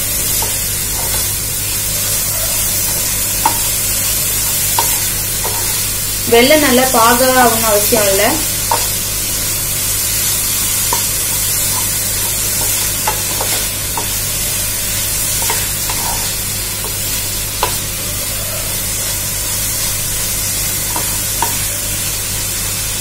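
Grated coconut and jaggery sizzling in a nonstick pan while a wooden spatula stirs and scrapes through it, with scattered light taps of the spatula against the pan. The jaggery is melting into the coconut as the sweet filling cooks, with no water added. A short voice comes in about six seconds in.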